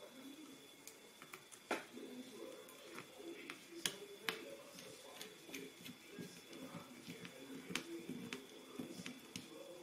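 Scattered small sharp clicks and taps of a screwdriver and plastic laptop lid parts being handled, a few of them louder, over a faint murmur of voices.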